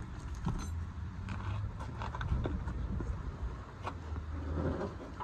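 Scattered sharp metallic clicks and clinks of a long-handled wrench and socket working the bolts of a red four-piston brake caliper, being torqued to 98 ft-lb.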